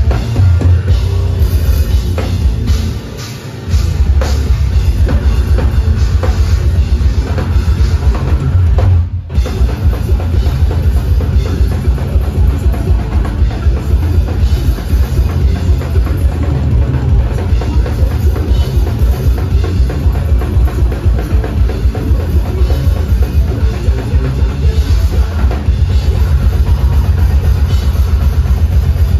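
Deathcore band playing live at full volume: distorted electric guitars over drums with rapid bass-drum beats. The band stops dead for a split second about nine seconds in, then comes straight back in.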